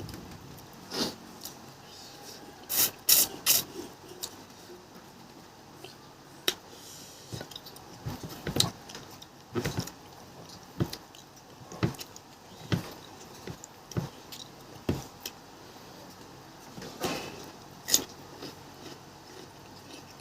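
People eating fish: irregular sharp clicks and smacks of chewing, with the loudest cluster about three seconds in.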